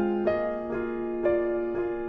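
Background music on a piano-type keyboard: gentle notes and chords struck about every half second, each ringing on.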